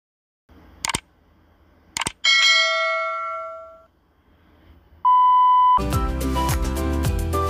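Two mouse-click sound effects about a second apart, then a bell chime that rings and fades over about a second and a half. Near five seconds in comes a steady electronic beep lasting under a second, then music with a beat starts.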